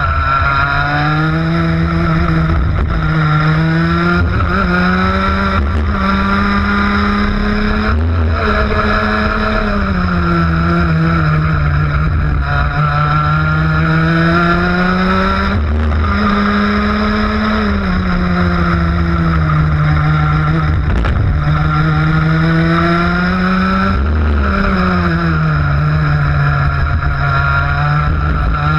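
ROK 125cc single-cylinder two-stroke kart engine at racing speed, its note climbing steadily as the kart accelerates down each straight and falling away as it slows for each corner, several times over, with a rush of wind beneath it.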